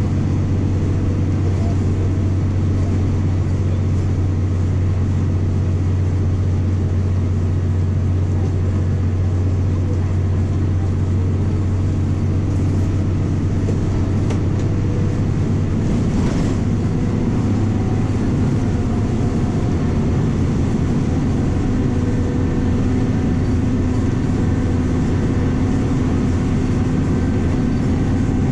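MWM 6.12 TCE six-cylinder turbo-diesel of a VW 17.230 EOD bus pulling along at road speed, heard from inside the cabin as a steady low drone. Its note changes about two-thirds of the way through, just after a brief click.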